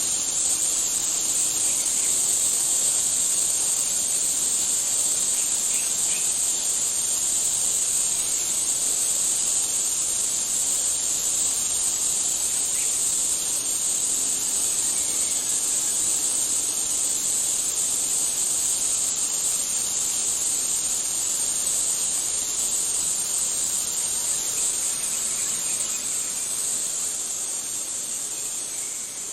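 Steady, high-pitched chorus of insects, dropping a little in level near the end.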